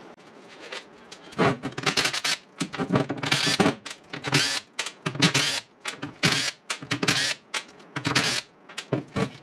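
Cordless impact driver backing out the rear cover bolts of a Subaru R160 differential, in a string of short bursts beginning about a second in.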